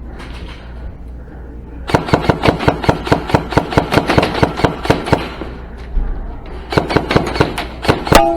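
Airsoft guns firing strings of rapid shots, about five a second, for about three seconds, then a short pause and another string.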